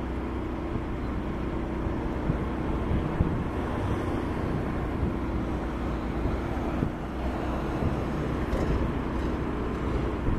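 Tall ship's diesel engine running steadily, a constant low hum, with wind buffeting the microphone.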